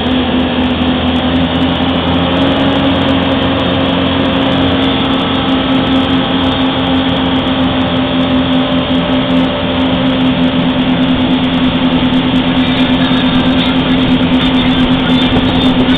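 Motorboat engine running steadily under way at speed, a constant hum over the rush of water and wind past the open boat.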